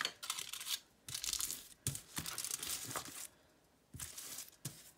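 Aluminium foil crinkling in about four bursts as hands fold it down over a cardboard collagraph plate and smooth it flat.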